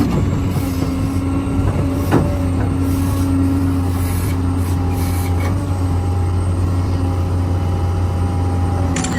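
A large engine running steadily with a low drone, with a sharp knock about two seconds in and another near the end.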